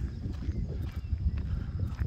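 Walking steps on a dirt-and-gravel track, about two a second, over a low rumble of wind on the microphone.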